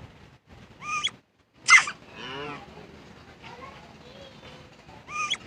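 A pet animal sneezing: a short squeaky intake about a second in, then one sharp, loud sneeze, followed by a brief voiced sound. Another short squeaky intake comes near the end.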